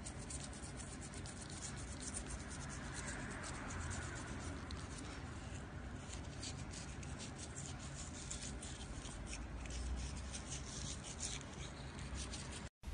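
Toothbrush bristles scrubbing over a cat's teeth: rapid, scratchy rubbing strokes. It cuts off abruptly near the end.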